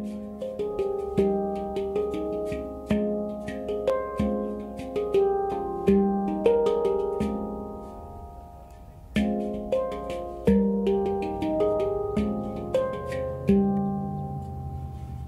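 Handpan tuned to F minor played by hand: a flowing pattern of struck, ringing notes that thins out about eight seconds in and picks up again with stronger strikes about a second later.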